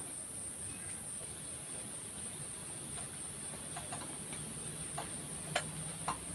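Steady high-pitched insect chirring, with a few short knocks of wooden boards being handled in the second half.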